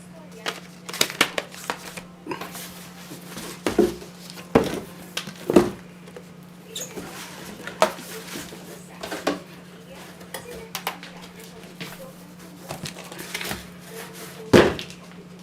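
Hard computer parts being handled and fitted: irregular clicks, clacks and knocks of metal and plastic, a few sharper knocks standing out, with the loudest near the end, over a steady low hum.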